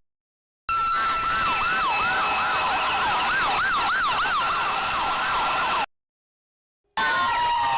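Electronic siren sound effect: quick rising-and-falling wails, about three a second, over a steady tone. It cuts out completely twice, at the very start and for about a second near six seconds in, and after that comes back as slower crossing sweeps.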